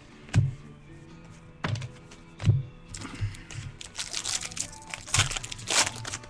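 Several sharp knocks of trading cards being handled on a table. From about halfway through comes a dense crackling of a foil card-pack wrapper being crinkled and torn open, over faint background music.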